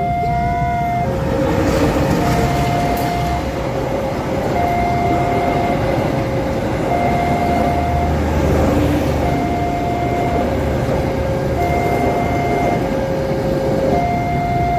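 A passenger train with economy-class coaches passes close by at a level crossing, its wheels and coaches making a steady rumble. Over it the crossing's warning alarm sounds without a break, alternating between a higher and a lower tone about every second.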